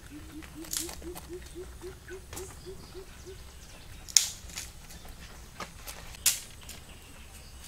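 Rabbits biting and chewing raw cabbage: crisp crunching clicks, with two louder sharp crunches about four and six seconds in. A rapid series of short low chirps, about four a second, runs through the first three seconds and then stops.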